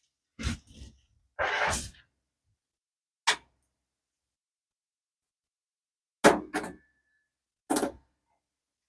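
Scattered knocks and clatters of parts and tools being handled and set down on a workbench during the teardown of a model aircraft. There is a single knock, a longer clatter about a second and a half in, another knock, a quick double knock past the middle, and one more near the end.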